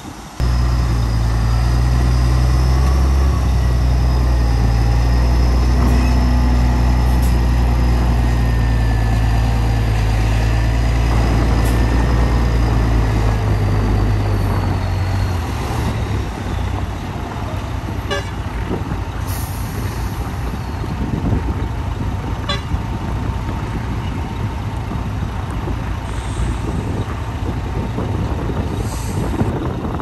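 A heavy construction machine's diesel engine running loud and steady close by, with a thin high whine over it. It cuts in abruptly at the start and eases off about halfway through.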